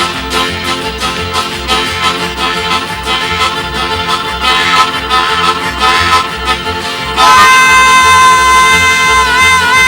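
Country band playing a fast train-song instrumental, harmonica to the fore over a chugging rhythm of banjo, guitars, double bass and washboard. About seven seconds in, a loud long high note takes over and wavers briefly near the end.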